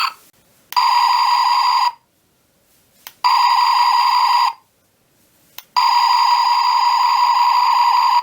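Star Trek Captain Pike laser pistol replica firing its electronic sound effect three times: each trigger click is followed by a steady buzzing tone lasting one to two seconds, the last one held longer.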